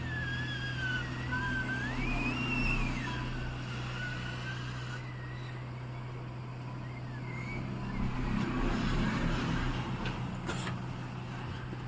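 Hot-air blower (heat gun) running with a steady rush and a low hum while it heats a phone's back glass to soften the adhesive beneath it.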